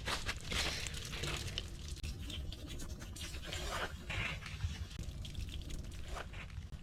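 Snow crunching and scraping in irregular strokes as snow is handled and packed into blocks.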